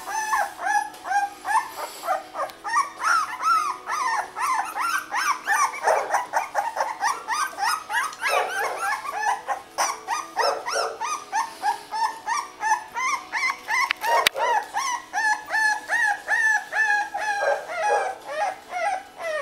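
A litter of newborn bull terrier puppies squeaking and whining without pause: many short, high-pitched calls overlapping, several each second.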